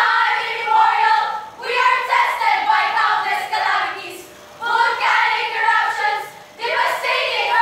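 A group of teenage students singing together in unison, in short phrases with brief pauses between them.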